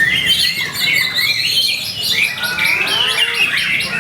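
White-rumped shama (murai batu) in full, continuous song: a fast run of varied whistles, sweeping notes and rapid trills with no pause.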